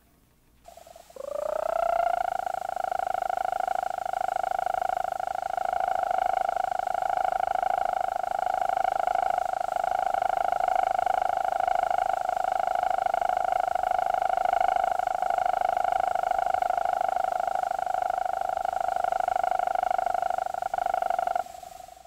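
Western green toad (Bufo debilis insidior) mating call: one long trill played back at a quarter of normal speed, which lowers its pitch and slows the trill rate. It starts about a second in with a short upward slide in pitch, holds steady, and cuts off suddenly near the end.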